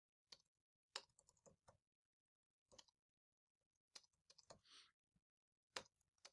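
Faint computer keyboard typing: scattered keystroke clicks in small clusters, with pauses between them.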